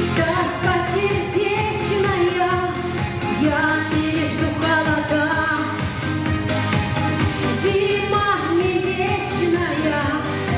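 Pop song with a singing voice over a steady beat.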